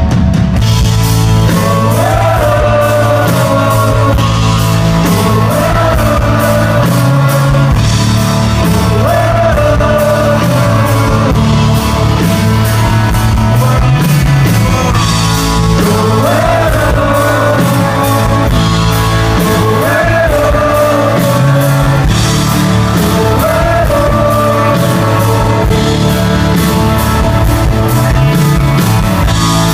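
Rock band playing live, with a sung melody rising and falling in repeated phrases over guitars and a steady drum beat.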